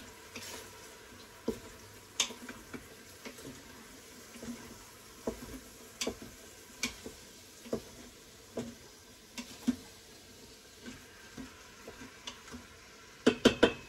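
A utensil stirring chicken and onions sautéing in an Instant Pot's metal inner pot: irregular scrapes and clicks against the pot over a faint sizzle, with a quick run of louder knocks near the end.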